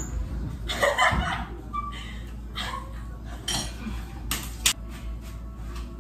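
Spoon knocking and scraping in a mixing bowl: irregular clinks and knocks, with two sharper knocks a little past four seconds in.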